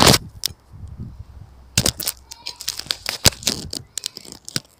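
Irregular clicks, knocks and rustling of handling noise on a handheld camera's microphone, with a loud knock right at the start and a dense run of clicks in the second half.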